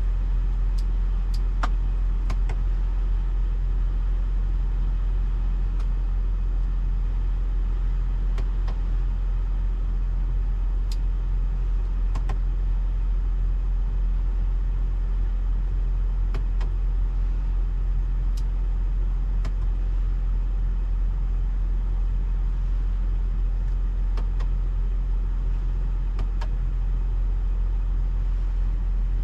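BMW X5 driving, a steady low rumble of road and engine noise, with a faint click now and then.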